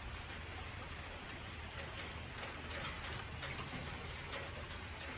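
Steady rain falling, with scattered individual drop hits, over a low steady rumble.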